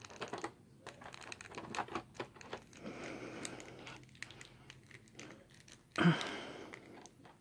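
Irregular small hard-plastic clicks and taps as a Loyal Subjects BST AXN action figure's head and parts are worked loose and swapped by hand, with a brief louder burst of noise about six seconds in.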